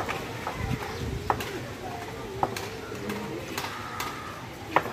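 Open-air background of faint distant voices and birds, with a few sharp knocks.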